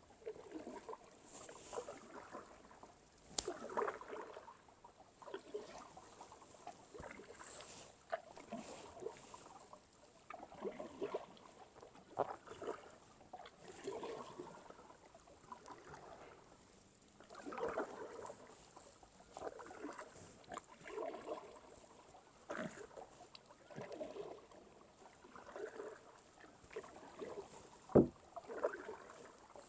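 Kayak paddle strokes: the blades dip and swish through calm water in an even rhythm, about one stroke every one and a half to two seconds. A few light clicks come between the strokes, and one sharp knock near the end, the loudest sound, is the paddle striking the kayak's hull.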